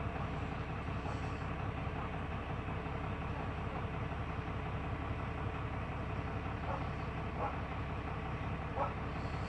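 Steady low hum of an idling engine, with a few short faint sounds near the end.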